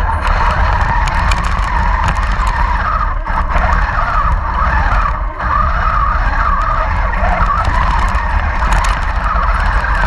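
Radio-controlled Panther tank model driving and turning over snow, heard close up from a camera on its hull: a continuous whine from its drive motors and gearing over a low hum, dipping briefly twice.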